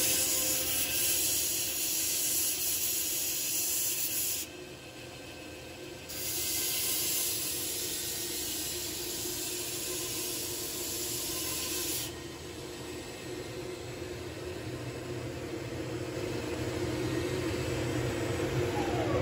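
Belt grinder with a 120-grit belt running over a contact wheel, with a steel spear socket pressed against it in two grinding passes: a loud, high hiss of steel on abrasive, the first about four seconds, a short break, then the second about six seconds. After the second pass the grinder runs on unloaded with a steady motor hum.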